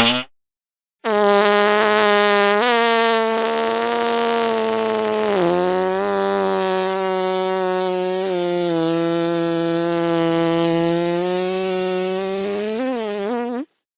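A very long, buzzy fart sound that holds a steady pitch for about twelve seconds, with a few small shifts in pitch and a wobble near the end before it cuts off suddenly. A short fart blip sounds at the very start, about a second before it.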